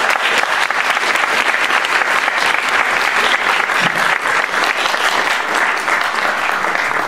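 Audience applauding: a dense, even patter of many hands clapping, dying away at the end.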